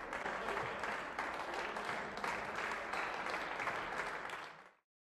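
Spectators clapping, a dense patter of many hands, which cuts off abruptly near the end.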